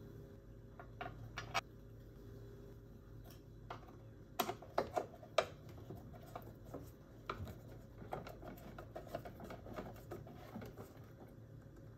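Screwdriver working the screws out of a Qualcast Swift EX35X lawnmower's drive-belt cover: a few sharp clicks and knocks as the tip seats in a screw head, then a run of small irregular ticks and scrapes as the screw is turned out.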